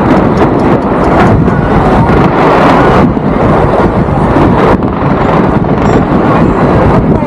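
Fireworks display going off: dense, overlapping bangs and crackles merging into a continuous loud rumble.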